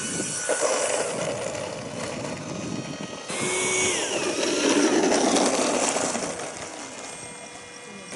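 Whine of radio-controlled model jets' electric ducted fans at power. The sound changes abruptly a bit over three seconds in, swells around the middle and fades toward the end.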